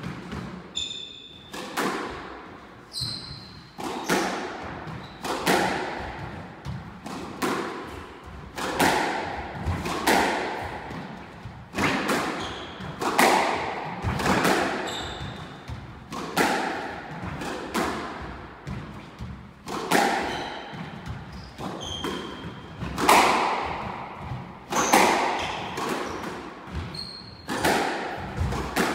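Squash rally: the rubber ball smacks off rackets and the court walls about once a second, each hit echoing around the enclosed court. Short, high squeaks from court shoes on the wooden floor fall between the hits.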